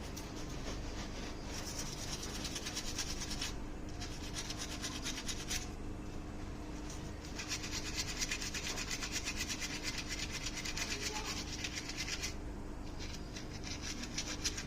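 Fast back-and-forth scrubbing or rubbing strokes in three bouts, the last and longest lasting about five seconds.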